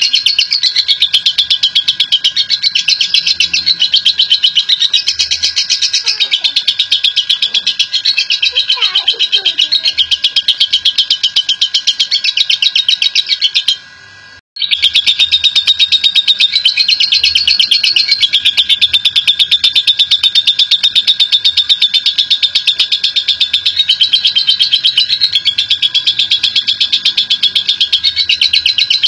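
Lovebird giving a long 'ngekek' song: a loud, very rapid, high-pitched chattering trill, kept up almost without pause and broken only once, briefly, a little before halfway. This drawn-out ngekek is the song prized in lovebird contests and played to set other lovebirds off.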